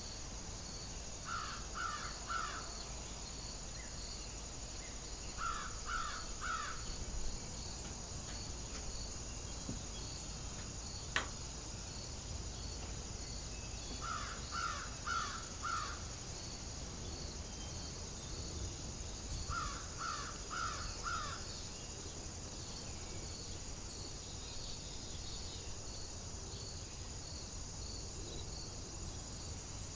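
A crow calling in runs of three or four caws, four times over, above a steady high chorus of insects and a low rumble of wind. A single sharp click sounds about eleven seconds in.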